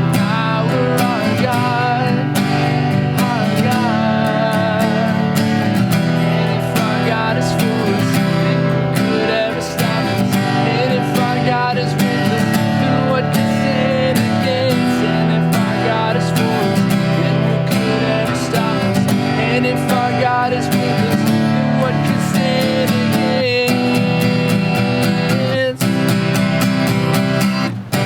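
Worship music with a strummed acoustic guitar and other instruments playing continuously, with no clear sung words.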